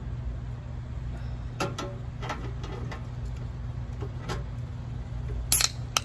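Light clicks and crackles of food being handled and eaten by hand, then near the end a sharp pop from a soda can's tab being worked open. A steady low hum runs under it all.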